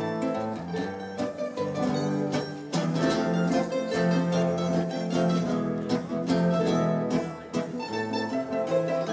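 Charango playing a waltz: a plucked melody with chords on its paired steel strings, picked at a steady pace.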